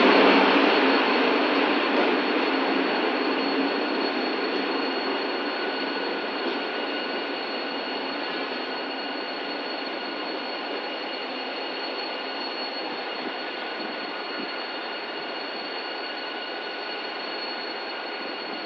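Locomotive-hauled passenger train of Chinese-built coaches pulling away, its running noise fading steadily as it draws off into the distance. A thin, steady high whine runs through it.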